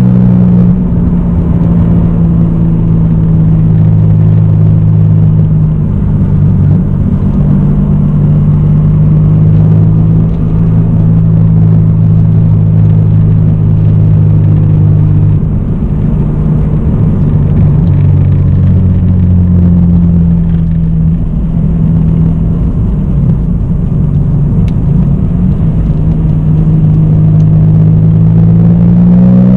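The non-turbo 1993 Toyota Supra's 3.0-litre 2JZ-GE straight-six, with an aftermarket exhaust and K&N cold air intake, cruising at fairly steady revs. The revs begin to climb near the end.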